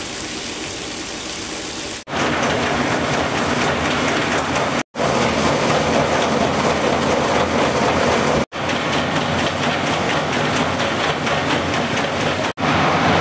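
Grape-processing machinery at vintage, a crusher-destemmer handling grapes, running with a steady mechanical rattle and a low hum. It breaks off abruptly and resumes about every three to four seconds, and it is louder after the first break.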